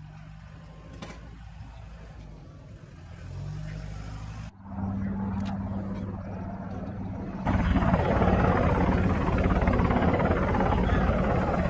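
Engine noise on an airfield flight line: a steady, low-pitched droning hum. It jumps up twice, and about seven and a half seconds in it becomes much louder and rougher.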